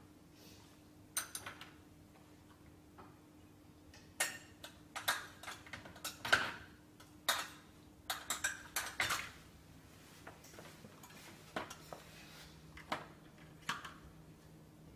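Dishes and cutlery in a loaded dishwasher rack clinking and rattling as an Airedale terrier licks them, in irregular clinks that come thickest in the middle.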